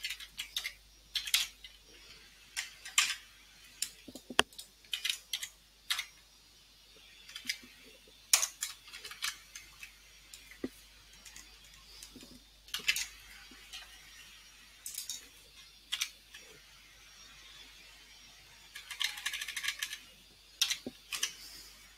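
Typing on a computer keyboard: irregular single keystrokes and short runs of keys separated by pauses, with a quicker flurry of keys near the end.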